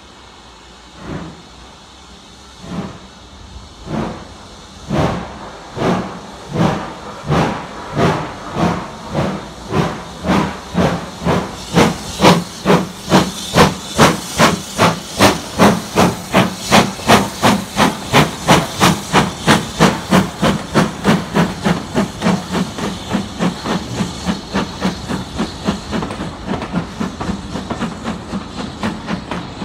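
Steam locomotive pulling away from a standing start: slow, sharp exhaust beats that quicken steadily to several a second as the train gathers speed. They are loudest as the engine passes close by, then ease off a little.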